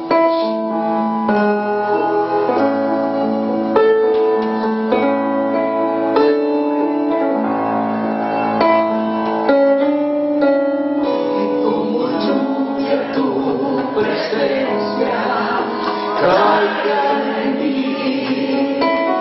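Worship band music: held keyboard chords to begin, then singers come in about eleven seconds in and sing over the band.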